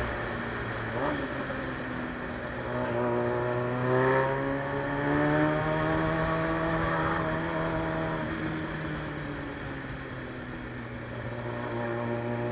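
Suzuki Bandit 600's carbureted inline-four engine running through a straight-through sport exhaust. It revs up about two seconds in, holds, then eases off gradually in the second half.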